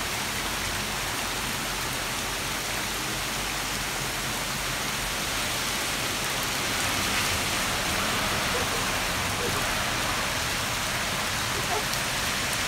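Heavy rain pouring onto a wet street, a dense, steady hiss that grows a little louder about halfway through.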